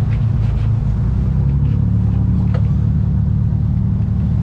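Fishing boat's engine running steadily at low revs, a low, even rumble. A single short click about two and a half seconds in.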